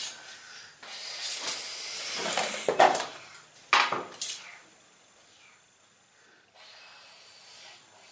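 Kitchen sounds: a hiss swelling for a couple of seconds, a few sharp knocks in the middle, then a fainter steady hiss near the end.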